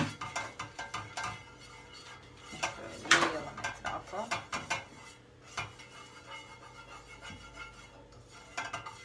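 A spatula scraping and tapping against a non-stick frying pan as a thin film of oil is spread over it: a string of light clicks and scrapes, with a louder one about three seconds in.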